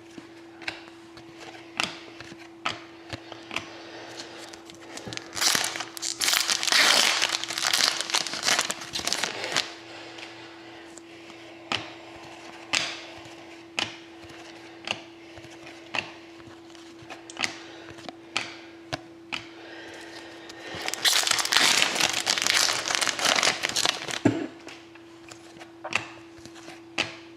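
Foil trading-card packs being torn open and crinkled, in two stretches, with sharp clicks of cards being flipped and snapped through between them. A steady faint hum runs underneath.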